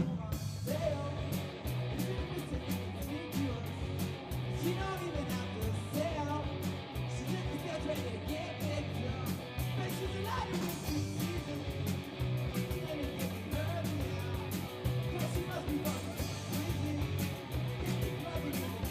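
Live rock band playing a song: electric guitar and a sung vocal over a steady beat.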